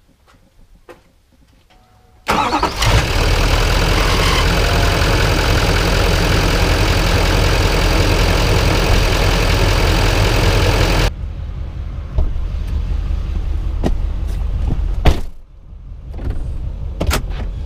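LML Duramax 6.6-litre V8 turbodiesel starting about two seconds in, then idling loud and steady under the open hood as it is run to burp air out of the freshly refilled cooling system. After a cut it idles more quietly, heard from inside the cab, with a few sharp clicks and knocks.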